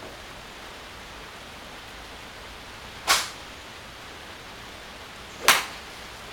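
Two crisp strikes of golf clubs hitting balls, about two and a half seconds apart, over a steady hiss.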